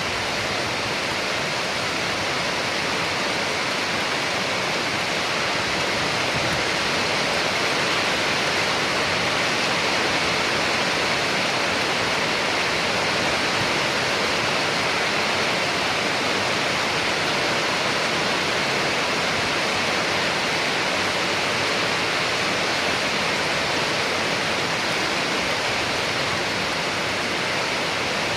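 Steady, even rain noise: a dense hiss without distinct drops.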